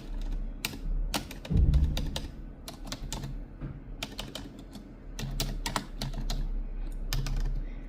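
Long natural fingernails typing on a computer keyboard: irregular clusters of sharp key clicks, with one heavier thump about a second and a half in.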